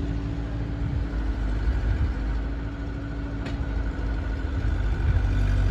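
Heavy diesel engine running steadily at low revs, with a single sharp click about three and a half seconds in.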